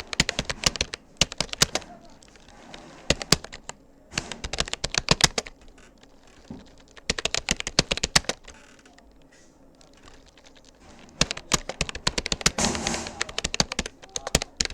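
Rapoo computer keyboard typed in bursts of quick keystrokes, with short pauses between the runs and a longer pause of about two seconds in the middle.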